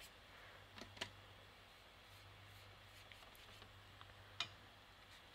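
Near silence: a faint steady low hum, with a couple of soft taps about a second in and another near the end.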